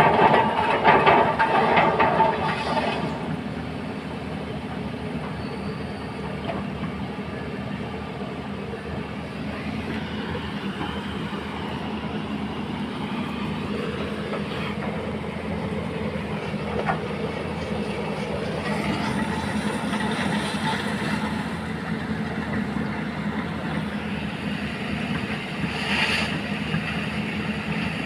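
Excavator's diesel engine running and its hydraulics working, with sharp metallic clanking in the first few seconds and a wavering high whine about halfway through.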